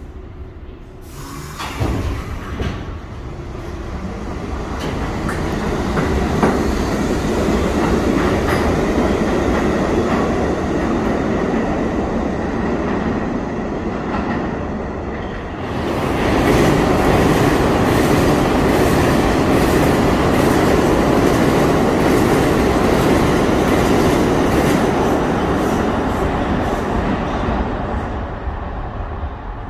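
New York City Subway trains running through an underground station. The rumble builds over the first few seconds as a train comes in along the tunnel, and stays loud. After a short dip about halfway through, it rises again with rapid wheel clatter over the rail joints, then fades near the end.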